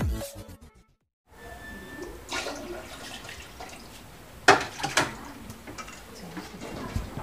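A stainless steel pot of balut duck eggs in water being handled on a tiled counter: water sloshing and a few sharp metallic clanks of the pot, the loudest two close together past the middle.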